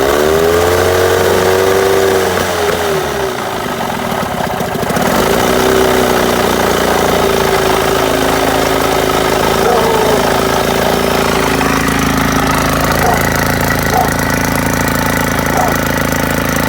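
Two-cylinder outboard motor, just pull-started, running with its revs rising then sagging about three seconds in before it settles into steady running. The motor is running for the first time in ten years, on a freshly rebuilt carburetor.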